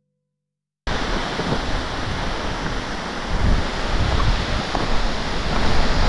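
Steady rush of falling water from Ribbon Fall's spray, with wind buffeting the microphone; it cuts in abruptly about a second in and grows louder past the middle.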